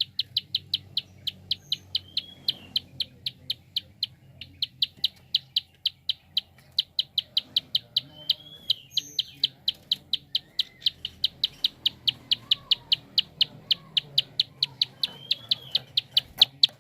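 Prinia (prenjak) giving its rapid clicking call: a steady run of sharp, high clicks about five a second, broken by two brief pauses, with a few short slurred notes over it.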